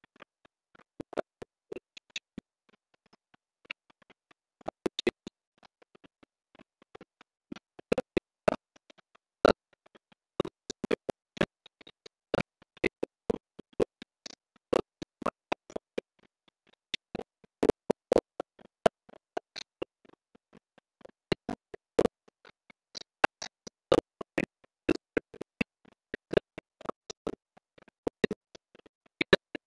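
Clicks from a computer keyboard and mouse, coming in irregular bursts of several a second.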